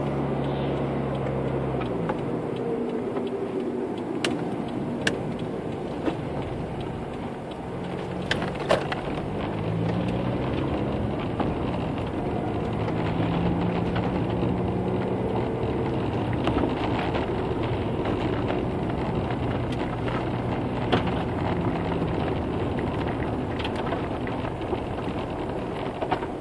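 Car engine and tyre noise heard from inside the cabin while driving. The engine note drops about two seconds in, then rises and falls again as the car slows and picks up speed on a narrow lane. A few sharp clicks sound along the way.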